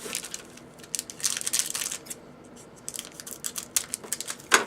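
Trading-card pack wrapper crinkling and cards being handled, with a run of short clicks in the second half and one sharper knock near the end.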